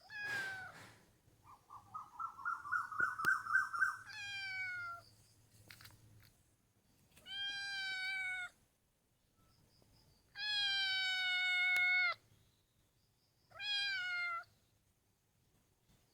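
Domestic cat meowing: a short falling meow, then a rolling, pulsed trill that rises and runs into a meow, followed by three more meows, the longest about two seconds.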